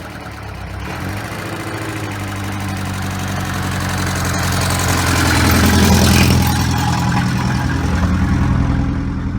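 VAZ (Lada) petrol engine running with the tapping of a worn hydraulic valve lifter under the valve cover. The revs rise to a peak about six seconds in, then drop back.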